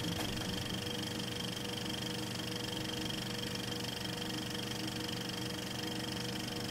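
A steady mechanical whirring hum with a thin high tone above it, unchanging throughout.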